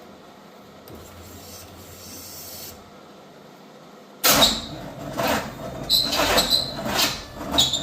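Chevrolet 350 small-block V8 cranking and firing unevenly in loud, irregular bursts about four seconds in, not settling into a run. The rough firing comes from plug wires that are all off by one, which the owner finds afterwards.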